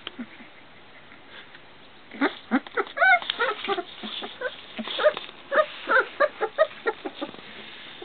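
Basset hound puppy whimpering and squeaking: a quick run of short, high-pitched whines and yips that starts about two seconds in and stops near the end.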